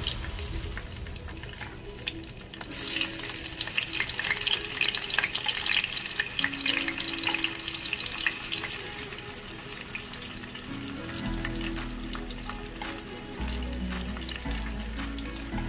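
Slices of luncheon meat sizzling and crackling in hot oil in a wok as more slices are laid in. The crackle grows louder about three seconds in and eases off in the second half.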